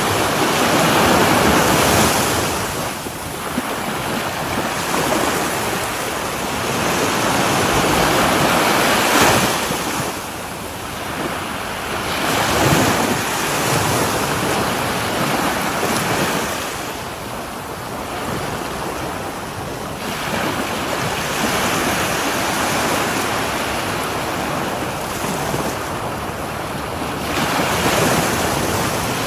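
Sea waves breaking and washing on a shore, the surf swelling and ebbing every few seconds, with some wind on the microphone.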